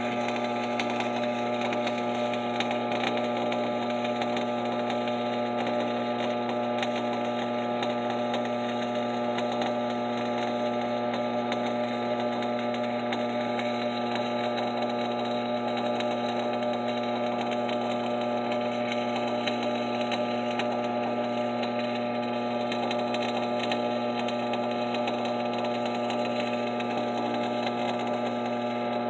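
Stick-welding arc from a 7018 electrode crackling steadily as a weld bead is run, with no break, over a steady electrical hum.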